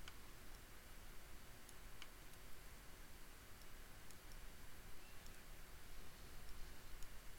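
A few faint, irregular computer mouse clicks over a low, steady background hiss.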